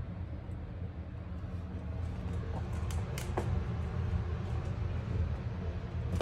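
A steady low hum, with a few sharp clicks about three seconds in, such as a puppy's claws on a hard floor.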